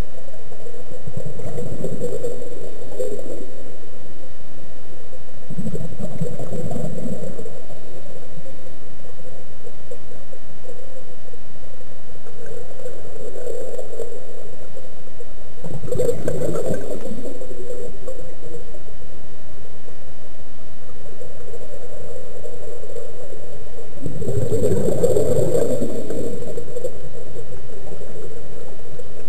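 Scuba regulator exhaust bubbles heard underwater: a diver's exhaled breath gurgling out in about five irregular bursts, a few seconds apart, over a steady underwater hiss.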